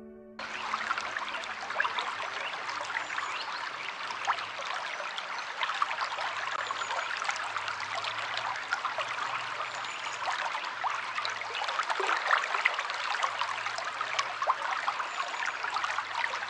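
Water trickling and splashing steadily, a dense patter of small droplet sounds that starts abruptly just after the start, with a faint low hum underneath.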